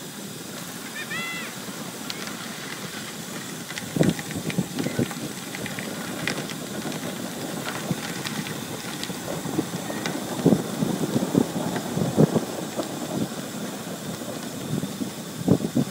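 Wind rushing over the microphone and tyre noise from a road bike descending at speed, with knocks and rattles as it rides over bumps in the rough road, and a short high squeak about a second in.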